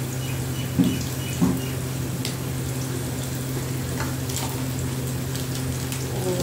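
Sliced onions sizzling and crackling in hot oil in a large aluminium pot, over a steady low hum. Two short knocks sound about a second in.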